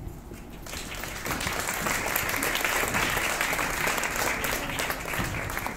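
Audience applauding a just-announced performer. The clapping builds over the first second or two, holds, and fades near the end.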